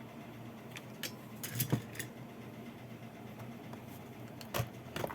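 Small tools and meter probes clicking and tapping on an amplifier circuit board, a few sharp clicks about a second in and two more near the end, over a steady low electrical hum.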